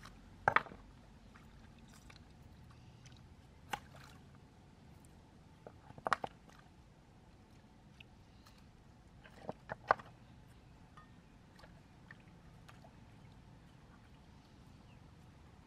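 Wet river stones knocking as they are stepped on and handled: a handful of short, sharp clacks a few seconds apart, the loudest about half a second in, over a faint steady trickle of water.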